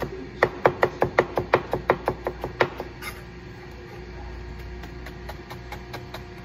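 Tojiro Pro nakiri knife chopping quickly through fine green leaves onto a plastic cutting board, about five even knocks a second, stopping a little under three seconds in.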